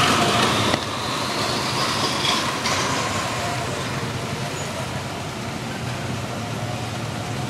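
Go-kart engines running on a track: one kart's small engine rises in pitch as it speeds up, then drops away abruptly under a second in, leaving a steadier, quieter drone of other karts.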